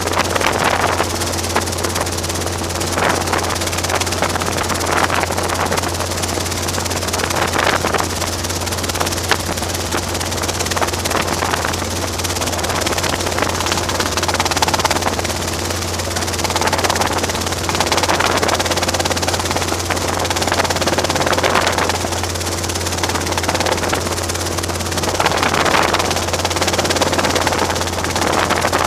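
Robinson R22 helicopter running: a steady low drone from its piston engine and two-blade rotor, with a constant noise over it that swells a little now and then.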